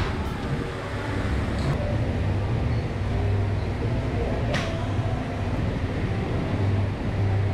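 A pitching wedge strikes a golf ball off a hitting mat about halfway through: one sharp click over a steady low background rumble.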